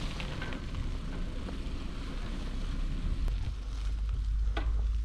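Wind buffeting the microphone of a moving bicycle, over a steady low rumble of tyres rolling on a rough, corrugated track, with a few sharp rattling clicks near the start and one near the end.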